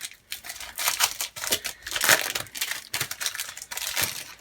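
Foil wrapper of a trading-card pack being torn open and crinkled by hand, a series of irregular crackles.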